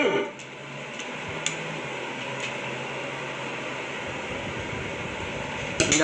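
Steady hiss of room noise, with a faint click about a second and a half in.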